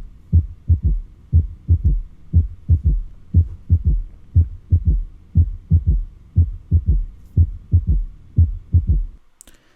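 Heart sounds with an S3 ventricular gallop: three low thuds per beat, about one beat a second, the third an extra sound in diastole just after S2. It is the gallop rhythm that is normal in children but in adults is usually pathological and closely linked to heart failure.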